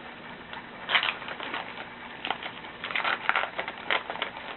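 A paper-and-foil baseball card pack wrapper being torn open and crinkled by hand, in irregular crackling rustles. The loudest rustles come about a second in and again in a cluster near three to four seconds.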